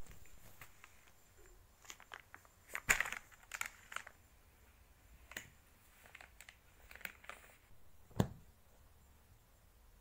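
Disposable diaper and plastic wet-wipes packet crinkling and rustling during a baby's diaper change, in short scattered bursts. The loudest rustle comes about three seconds in, and a single thump about eight seconds in.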